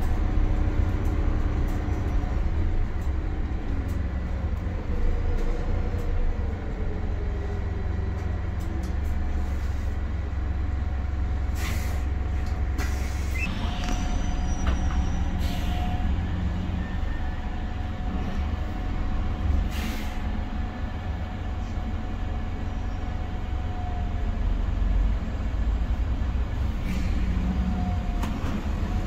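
Cabin noise inside a Wright StreetLite single-deck bus on the move: a steady low engine and road rumble with a faint whine. A few short hisses and rattles come about halfway through.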